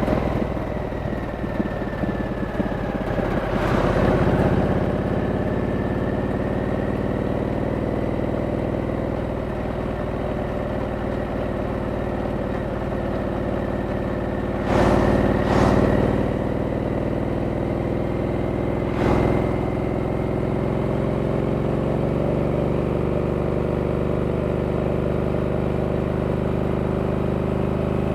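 2023 Harley-Davidson Sportster S's Revolution Max 1250T V-twin running at a steady cruise, its pitch nearly level, with brief louder surges about 4 seconds in, around 15 to 16 seconds in, and near 19 seconds.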